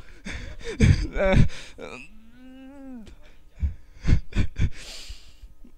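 A man's voice in a pause: a few muffled words, then a drawn-out hesitation sound ('uhh') that rises and falls in pitch for about a second. It is followed by several short knocks and a brief breathy hiss.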